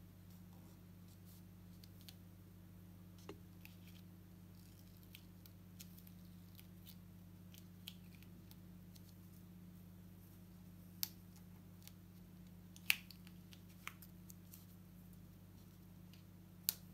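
Fingernail picking at and peeling the paper backing off an adhesive sand-art board: scattered small clicks and crackles, a few sharper ones in the second half, over a faint steady hum.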